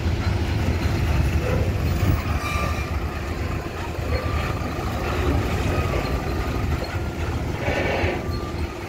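Heavy loaded diesel cargo truck driving slowly past, its engine running with a steady low rumble.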